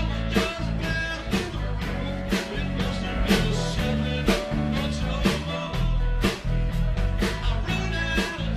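A live rock band playing an instrumental stretch: electric guitar and bass guitar over a drum kit keeping a steady beat, with a strong drum hit about once a second.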